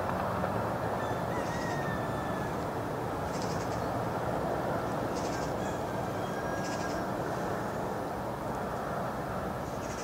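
Steady wind noise outdoors, a constant rushing hiss with no breaks, with short high chirps every second or two.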